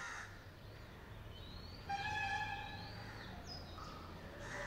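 Small birds chirping in short gliding calls over a steady low background hum. About two seconds in, a louder steady pitched tone sounds for about a second.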